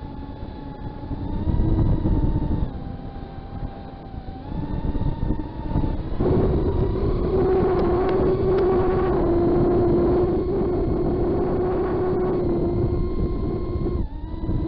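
FPV quadcopter's motors and propellers whining, the pitch stepping up and down with throttle. It gets louder and higher-pitched about six seconds in and holds there, with wind rumble underneath.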